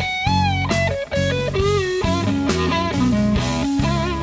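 Blues lead guitar on a Telecaster-style electric guitar played through a Carvin Vintage Series all-tube amp: single-note phrases with many string bends over lower sustained notes.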